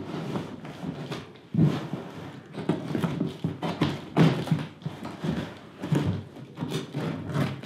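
Scissors cutting and scraping along the packing tape on a cardboard box, in an uneven run of crackling scrapes and knocks against the cardboard.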